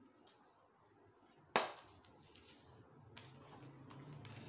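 Hands handling a phone's cardboard retail box and its plastic-packed accessories: one sharp knock about one and a half seconds in, then a fainter click.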